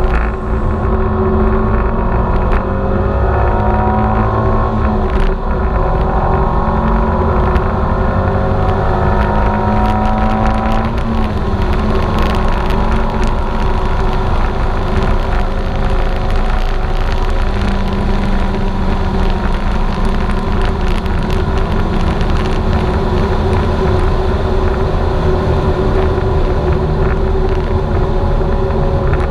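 Turbocharged Subaru Forester XT engine under hard acceleration, its pitch climbing with upshifts about five and eleven seconds in, then holding a steady note at speed with wind noise.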